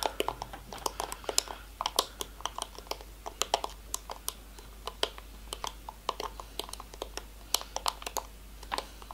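Ice cubes clicking against the sides of a plastic cup as the drink is swirled by hand: light, irregular clicks, several a second.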